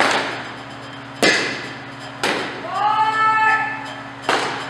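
Four sharp smacks of a softball, the ball struck and caught on an indoor fielding drill, each echoing in the large hall. Between the third and fourth smack there is a short held call of about a second.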